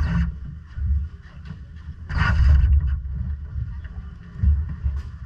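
Quarter midget race car's engine running, under a heavy low rumble of wind on the camera microphone, with a louder hissing rush about two seconds in.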